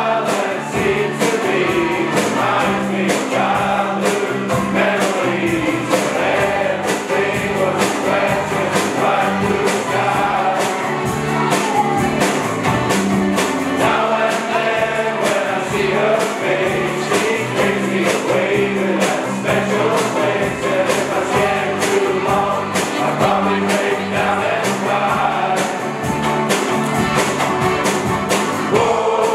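An Up Helly Aa Jarl Squad singing together in chorus, with a steady beat under the voices.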